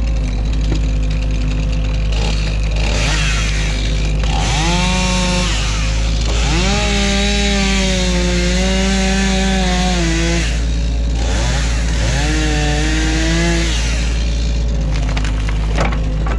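Excavator's diesel engine running steadily, with a loud pitched whine and rasp rising over it three times, the longest for about four seconds.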